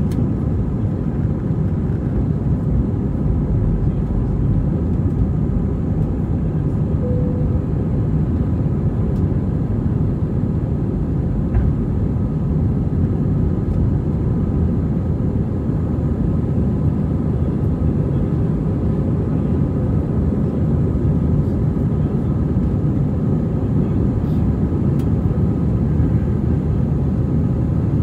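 Airbus A320 cabin noise during the initial climb after takeoff: the engines at takeoff power make a steady, even rumble, with faint steady whining tones above it, heard from inside the cabin over the wing.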